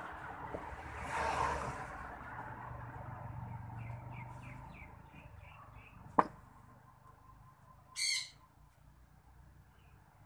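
Birds calling: a quick run of about eight short chirps about four seconds in, and a short, loud, high call about eight seconds in. A single sharp knock from a terracotta pot being handled comes just after six seconds, with some rustling near the start.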